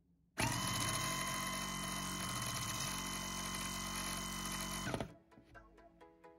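Small DC motor spinning a plastic fan at full speed: a steady whir with a high whine, starting about half a second in and cutting off near five seconds.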